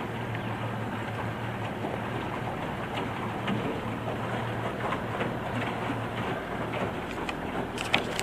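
2001 Mercury 25 HP outboard motor running steadily under way, under the rush and patter of water against the aluminum jon boat's hull. A couple of sharp taps near the end.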